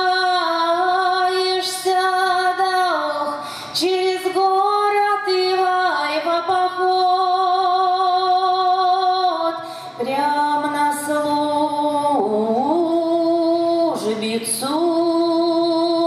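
A woman singing a traditional Russian folk song unaccompanied, holding long drawn-out notes and sliding down in pitch between some of them.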